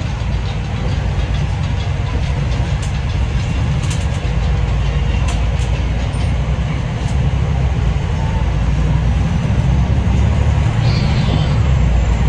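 Cabin noise inside a MAN ND323F bus under way: a deep, steady engine-and-road drone, with light clicks and rattles from the interior fittings, growing a little louder in the second half.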